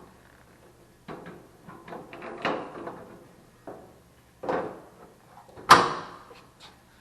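A series of separate knocks and clatters of hard objects being handled, with one louder bang about three quarters of the way through.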